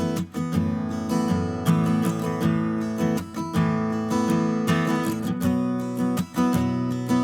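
Background music: strummed acoustic guitar with a steady rhythm, briefly dipping about every three seconds.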